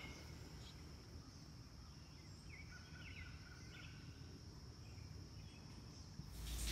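Faint early-morning ambience heard from inside a tent: an insect's steady high trill, with a few short chirps from a songbird about halfway through. Just before the end a much louder rush of running shower water cuts in.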